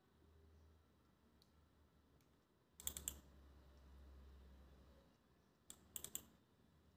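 Computer keyboard keystrokes, heard faintly: a quick run of key taps about three seconds in as a dimension value is typed, then another short cluster of clicks near the end. A faint low hum sits between them.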